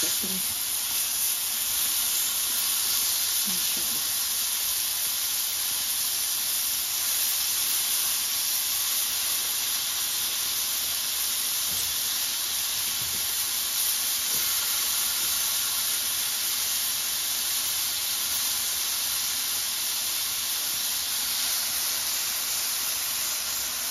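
Marinated chicken tikka skewers sizzling steadily in hot oil in a large frying pan.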